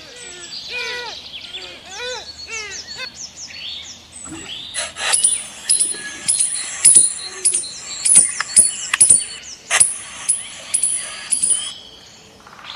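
Birds chirping, with short, repeated arching calls in the first few seconds. From about five seconds in until near the end comes a run of loud, sharp clicks.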